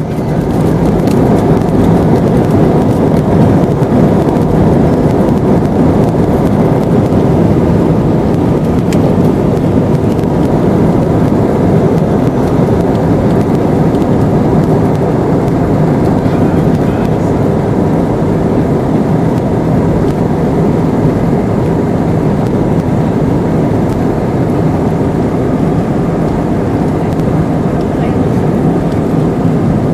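Airliner engines at takeoff power, heard from inside the cabin: a loud, steady engine and airflow noise that swells over the first second and then holds during the takeoff roll and climb.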